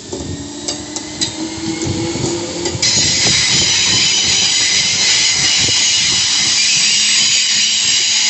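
Class 313 electric train running slowly into the platform: clicks from the wheels over the rail joints and a low whine from the running gear, then about three seconds in a loud, steady hiss of air starts and holds.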